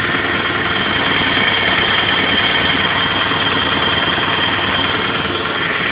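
Toyota MR2 engine running steadily with a steady high-pitched whine over it, the abnormal noise that the owner calls horrible and cannot identify.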